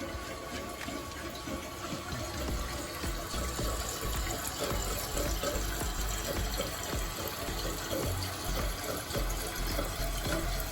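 Water running steadily into a toilet tank through a newly installed Korky Universal fill valve as the tank refills.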